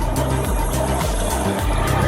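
Background music with a steady beat and a pulsing bass.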